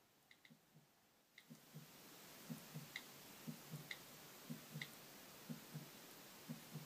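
Faint clock-like tick-tock: a soft low double beat about once a second, starting a little over a second in, over a light hiss. A few faint light clicks come before it.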